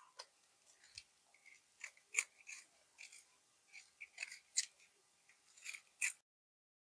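Small kitchen knife peeling the skin off a fresh ginger root: a series of short, faint cutting strokes at uneven intervals.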